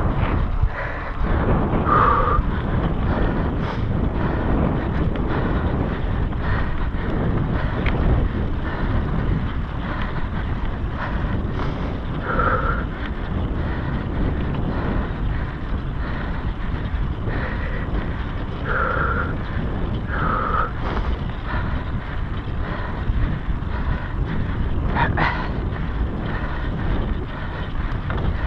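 Wind buffeting a GoPro's microphone on a mountain bike at speed, mixed with the rumble and rattle of the knobby tyres and bike over pavement and dirt trail. A few brief higher-pitched sounds stand out above the steady noise.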